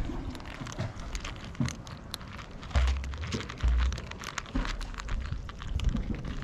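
Several cats eating dry kibble from trays: a dense patter of small crunches and clicks as they chew, with a couple of heavier low thumps around three and four seconds in.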